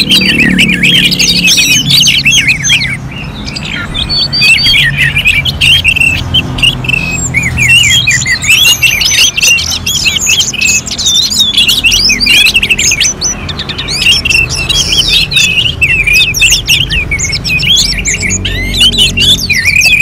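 Orange-headed thrush singing a fast, unbroken run of varied high chirps and whistles, easing briefly about three seconds in and again around thirteen seconds.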